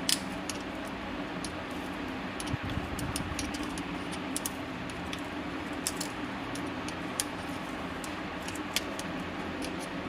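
A thin pick scraping and clicking against the dirt-clogged brass mesh inlet filter inside a dishwasher's metal hose fitting. It gives a scatter of sharp little ticks over a steady low hum.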